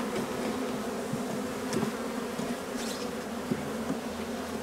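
Honeybees buzzing around an open hive in a dense, steady hum, with a few light knocks.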